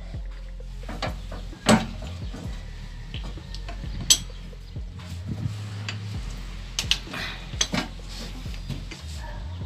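Metal tool clinks as a socket wrench with an extension works the bolts on a Suzuki multicab's transmission, loosening it for removal. There are scattered light clicks and a few sharp clanks, the loudest about two seconds in, at four seconds and near the end.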